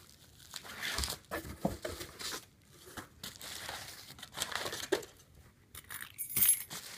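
Bubble wrap and plastic wrapping crinkling and rustling in irregular bursts as a bubble-wrapped box is lifted out of a cardboard shipping box and handled, with a short louder burst near the end.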